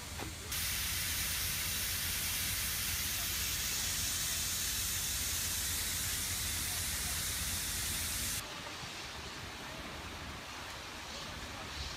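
Loud steady hissing rush of fire-hose water jets spraying onto a blazing storage tank. It starts and stops abruptly, about half a second in and again after about eight seconds. A quieter steady hiss and low rumble follows.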